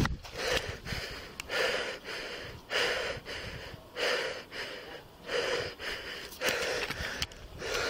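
A police officer's heavy, rapid breathing close to the body-worn camera microphone, about one breath a second. It is the hard breathing of a man under stress right after an exchange of gunfire.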